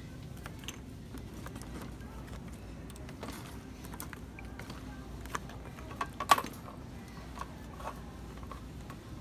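Groceries being handled in a shopping cart: light scattered clicks and knocks of cans and cartons, with one sharp, louder knock about six seconds in, over a steady low hum.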